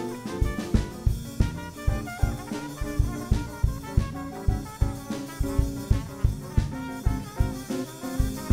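Live band playing an instrumental passage: a drum kit keeps a steady beat under electric bass, electric guitar and brass horns.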